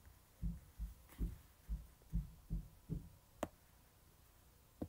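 Faint, dull low thumps, about seven of them at a little over two a second. They are followed by a single sharp click and a softer one near the end.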